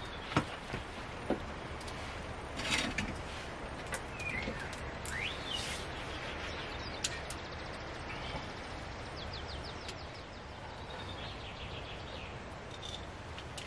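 Steady outdoor background hiss with scattered bird chirps. A few small knocks come in the first few seconds as a cup and pot are handled on the wooden table.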